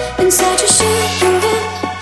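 Electronic dance music from a breakbeat mixtape: a heavy sustained bass line with a pitched synth melody and drum hits.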